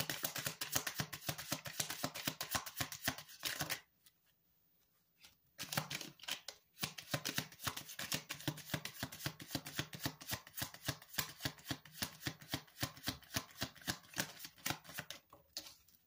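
A deck of tarot cards being shuffled by hand: a quick run of card flicks and slaps that stops for about two seconds around four seconds in, then starts again and carries on.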